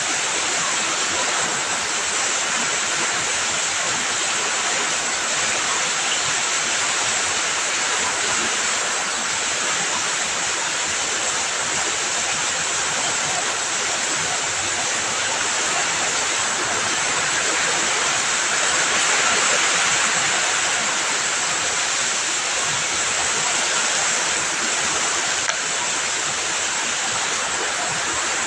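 Heavy rain pouring steadily, a dense, even hiss that swells a little about two-thirds of the way through.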